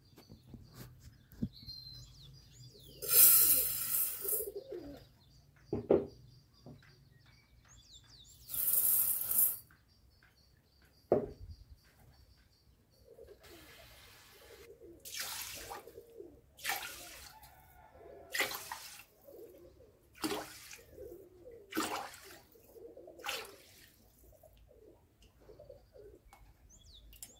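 Water poured into a stainless steel bowl of rice in two long rushes, then a run of short splashing swishes as the rice is washed and stirred in the water. Birds chirp faintly in the background.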